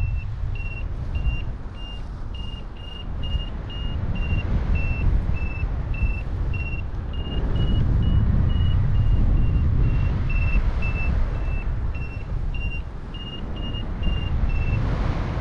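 Paragliding variometer beeping its climb tone: short high beeps a little under two a second, pitch drifting slightly up and down with the lift, stopping near the end. Heavy wind rumble on the microphone underneath is the loudest sound.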